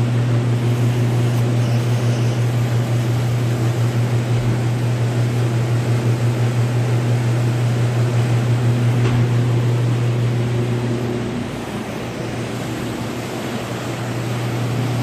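Ventilation machinery humming steadily and low, with a fast pulsing beat; the hum drops a little about eleven seconds in.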